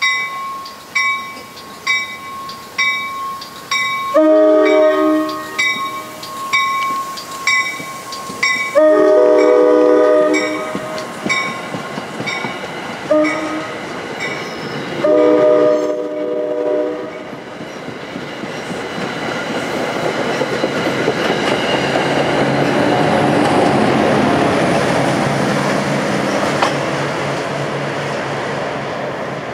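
Railroad grade-crossing bell ringing steadily at about one and a half strikes a second while an approaching NJ Transit train sounds its horn in the crossing pattern: two long blasts, a short one and a long one. After the last blast the bell fades out under the train's rumble, which swells as the train runs in along the platform.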